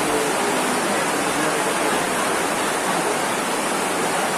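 Heavy rain falling on a fabric tent roof: a steady, dense hiss.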